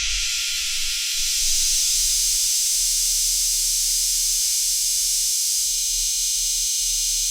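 A steady, loud, high-pitched hiss, like rushing steam or white noise, holding level throughout with no knocks or clicks.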